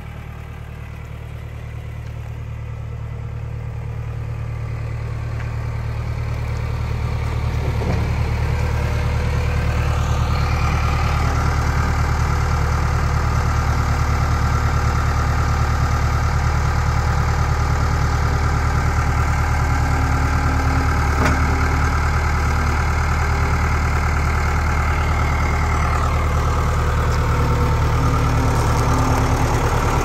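Case 1840 skid steer's diesel engine running steadily at one speed, growing louder over the first several seconds and then holding. A faint high whine joins about a third of the way in.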